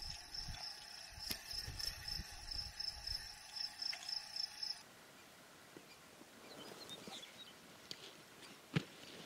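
An insect chirping in a fast, steady pulse, with low knocks underneath, cutting off suddenly about five seconds in. Near the end comes a single sharp crack: a .25-calibre Air Venturi Avenger PCP air rifle firing.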